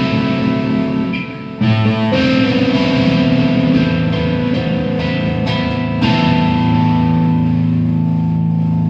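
Electric guitar played through a Marshall combo amp on a crunchy overdriven tone: sustained chords ringing out, a short dip about a second and a half in, then fresh chords, the last struck about six seconds in and held.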